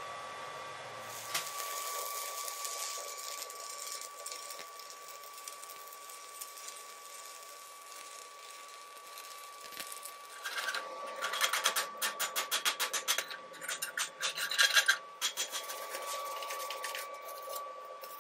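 Stick (SMAW) arc welding a steel pipe to a steel base plate: the arc hisses and crackles steadily, and from about halfway to near the end it pulses louder, about three times a second. A thin steady whine runs underneath.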